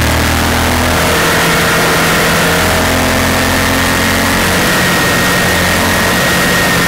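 Honda Varadero's V-twin engine pulling steadily at cruising revs, mixed with heavy wind rush over a helmet-mounted microphone.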